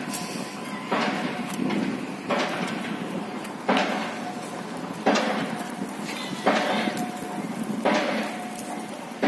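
Construction hammering: heavy, evenly spaced metallic blows, one about every second and a half, each with a short ringing tail.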